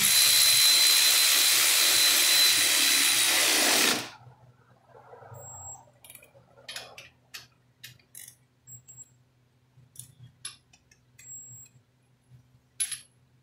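A power wrench runs steadily on the bolts of a lawn tractor's track mount for about four seconds, a loud hiss with a thin steady whine, then cuts off. After that come scattered light clicks and clinks of a hand ratchet and metal parts.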